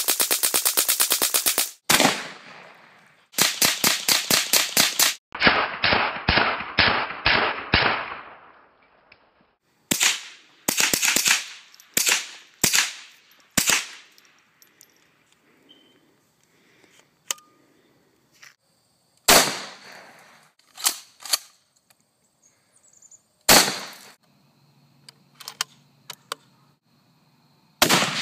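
.22 LR rifle shots: fast strings of sharp cracks in the first eight seconds, then single shots spaced a few seconds apart. Right at the end a louder 7mm Remington Magnum rifle shot with a long echoing tail.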